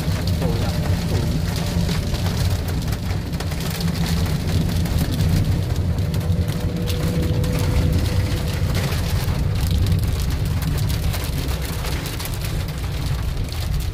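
Rain pattering on a moving car, heard from inside the cabin over the low rumble of the car driving on a wet road.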